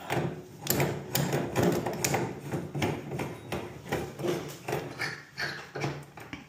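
Chrome quarter-turn tap handle being handled and pushed back over its brass spindle: a dense run of irregular metal clicks, knocks and scrapes.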